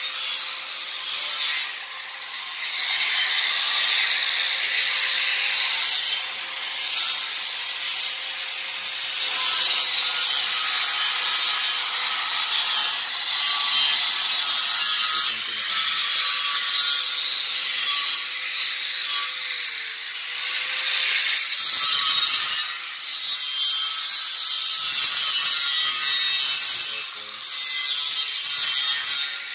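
Harsh, steady rasping of abrasive metalwork on steel, broken by short pauses every few seconds, with a faint steady hum underneath.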